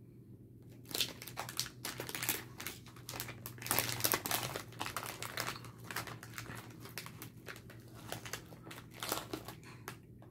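Plastic candy bag crinkling and rustling in irregular bursts as it is handled and rummaged through for a piece of candy.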